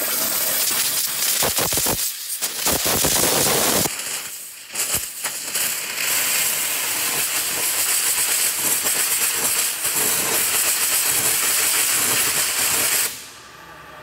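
Waterjet cutter's high-pressure jet cutting through a 6061-T6 aluminium sheet: a loud, steady hiss that drops briefly about two seconds in and again about four seconds in, then stops about a second before the end.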